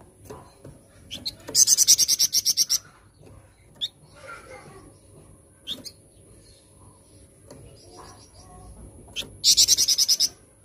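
Flamboyan songbird calling: two loud, rapid rattling trills of about a second each, one near the start and one near the end, with single sharp chirps between them.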